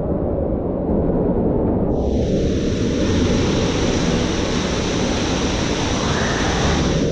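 Loud, steady rush of water with a deep rumble, a brighter hiss joining about two seconds in.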